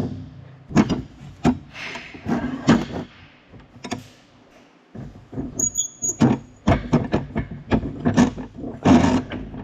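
Irregular clanks and knocks of metal parts being handled at a hydraulic hose crimping press, with a brief high squeak about six seconds in.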